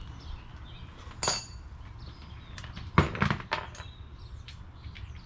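Scattered metallic clinks and knocks of hand tools and suspension parts being handled: a sharp ringing clink about a second in, then the loudest knock about three seconds in, followed by a few smaller ones.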